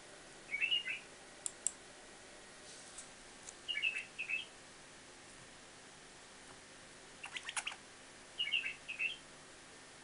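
White-eared bulbul chirping in three short bursts of a few quick notes each: about a second in, about four seconds in, and near the end. Two sharp clicks follow the first burst, and a quick run of clicks comes just before the last.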